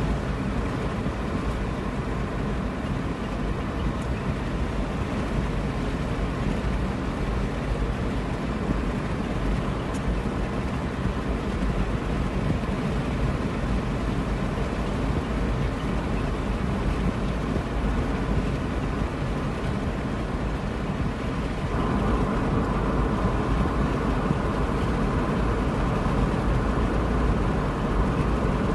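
Car cabin noise while driving: a steady low road-and-engine rumble heard from inside the car, getting a little louder about 22 seconds in.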